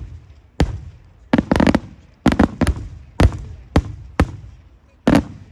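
Daytime fireworks bursting: an irregular series of about ten loud bangs, some in quick clusters, each trailing a short echo.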